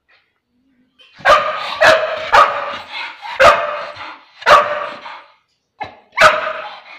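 Yellow Labrador retriever barking: six loud barks at an uneven pace, with a short softer one just before the last.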